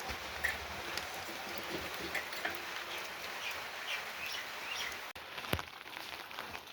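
Steady rain falling, with a small bird chirping now and then in short runs and a single knock near the end.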